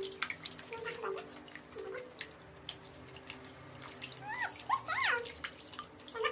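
Guinea pig making short squeaks during a bath, with a few higher rising-and-falling squeals about four to five seconds in, over water splashing and dripping in a plastic basin as hands wash its fur.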